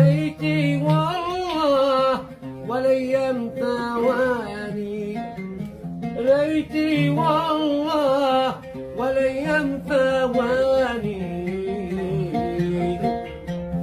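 Music: a voice singing a wavering, ornamented melody over plucked-string accompaniment.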